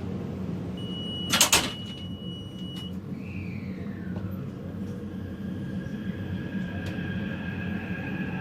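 Taipei Metro train at a platform: a long high warning beep, the sliding doors knocking shut about a second and a half in, then the electric drive's whine sliding down in pitch and settling into steady tones as the train starts to move, over a steady low rumble.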